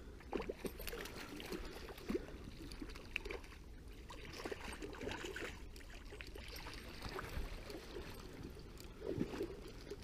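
River water trickling and flowing, with scattered small knocks and rustles close by.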